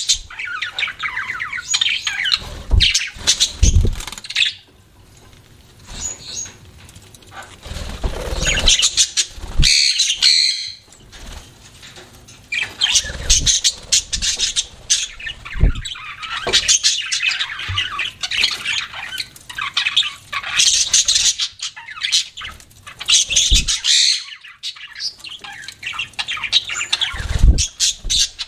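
Pet budgerigars chattering, chirping and squawking in quick irregular bursts, with short pauses, mixed with a few brief low thumps.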